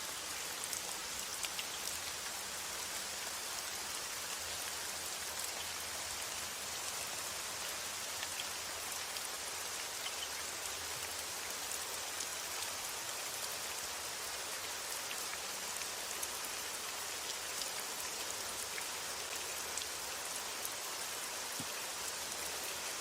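Steady rain falling, an even dense patter with scattered individual drop ticks, starting abruptly and holding steady throughout.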